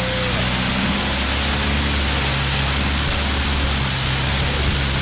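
Motorboat engine running steadily under way, a low drone under a loud, even hiss of wind and water rushing past the hull.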